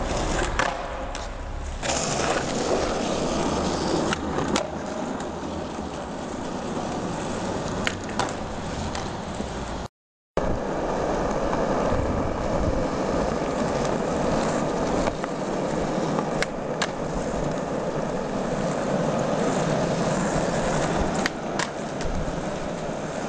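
Skateboard wheels rolling over rough asphalt and concrete, a steady grinding rumble, with scattered sharp clacks of the board hitting the ground. The sound drops out completely for a moment near the middle.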